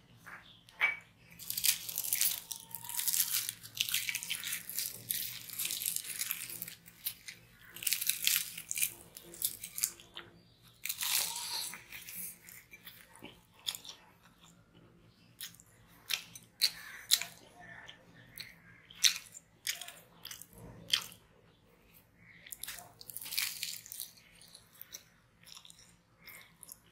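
Close-miked chewing and mouth sounds of a person eating flaky paratha with honey: long stretches of chewing in the first ten seconds or so, then separate sharp smacks and clicks.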